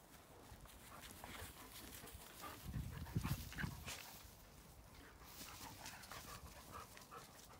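Several dogs moving about and sniffing at close range: faint scattered small sounds of dogs, with a soft low rumble about three seconds in.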